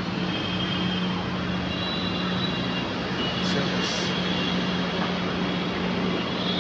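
Steady rushing background noise with a continuous low hum underneath.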